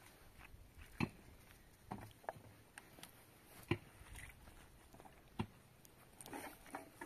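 Several sharp knocks and taps at uneven intervals over a faint background hiss, the loudest about a second in and near the middle.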